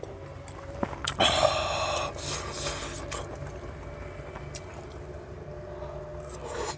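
A person eating ramen noodles: two noisy slurps in the first few seconds, then quieter chewing with a few light clicks.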